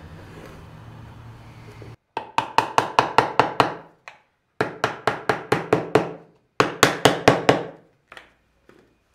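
Mallet tapping the finger (box) joints of a glued-up wooden box to seat them. It comes as three quick runs of sharp taps, about six a second, then two lone taps. A steady low hum comes before the first taps.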